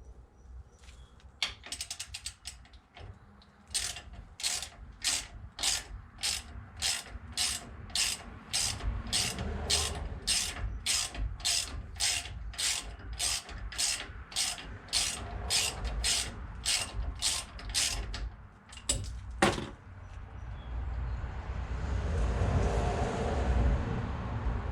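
Hand socket ratchet wrench clicking in steady back-and-forth strokes, about two clicks a second, as a bolt is turned out on the brake assembly. A single sharper click follows, then a louder, steady noise near the end.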